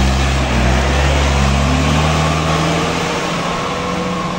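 Isuzu Elf dump truck's diesel engine pulling under load as it passes close by and climbs the hill. Its pitch rises slightly about a second in, and the sound fades gradually as the truck moves away.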